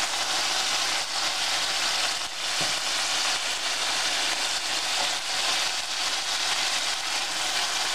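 Pork tenderloin strips frying in hot oil in a stainless steel pan: a steady sizzling hiss.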